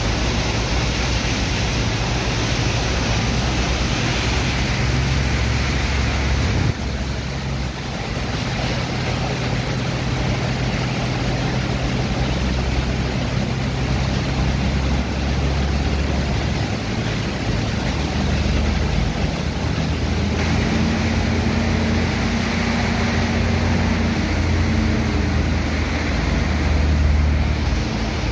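High-pressure water jets from hoses hissing and splashing onto wet sand heaps in a steel barge hold, washing the sand into slurry, over a steady low engine drone from the pumping machinery.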